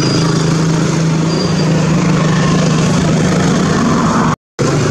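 A motor engine running steadily with a constant low hum, cut off by a brief total dropout near the end.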